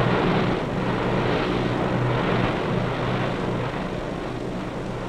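A steady low hum with a broad hiss over it, slowly fading.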